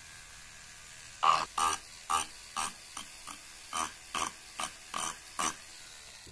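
Flex-shaft handpiece of a restored Lucas dental pendant motor, its small rotary wheel touched to carved wood in about a dozen short grinding bursts, with a low steady background between them.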